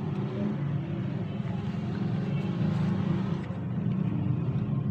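Steady low mechanical rumble.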